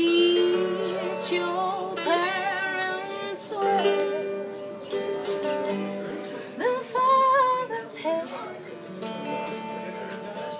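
Acoustic guitar being played, with a voice singing over it in long, wavering notes.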